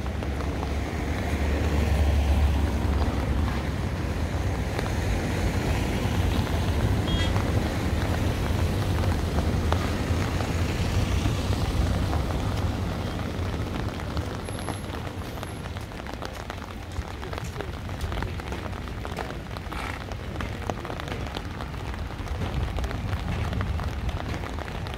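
Wind buffeting the microphone: a steady rushing rumble that is heaviest in the first few seconds.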